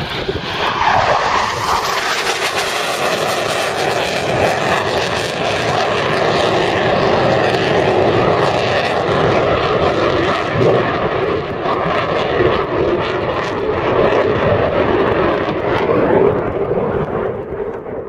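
Loud, sustained jet noise from a Eurofighter Typhoon, its twin EJ200 turbofans, flying low and fast overhead.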